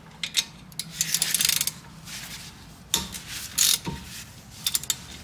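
Short runs of rapid ratcheting clicks, one longer run about a second in and a few shorter ones later, from a ratchet mechanism being worked while the front brake caliper is freed.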